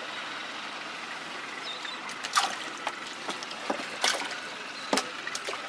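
Water trickling steadily in a boat's livewell. A few short sharp taps stand out over it, the clearest near the middle and about a second before the end.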